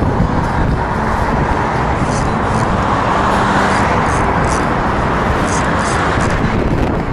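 Road traffic noise: a steady rush of passing vehicles that swells in the middle and eases off near the end.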